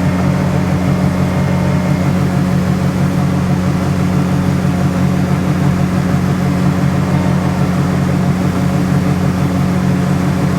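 John Deere 7720 Turbo combine running steadily while harvesting wheat: a constant, loud drone from its turbocharged six-cylinder diesel engine.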